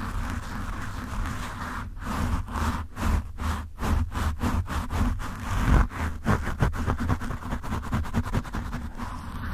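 Fingertips and nails scratching a foam microphone windscreen right on the mic: a rough, close rustling scratch with a low rumble. The strokes quicken from about the middle into rapid short scratches, with a loud thump a little past halfway.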